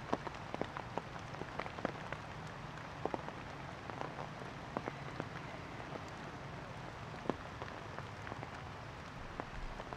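Rainwater pattering onto surfaces: a steady hiss with scattered, irregular drop hits landing close by.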